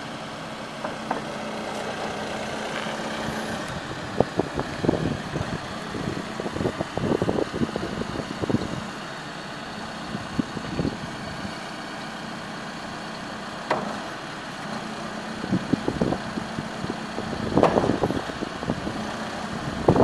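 Case 580SN backhoe loader's diesel engine running steadily while the rear boom and bucket are worked, with repeated short clunks and knocks from the backhoe arm, in clusters about four to nine seconds in and again near the end.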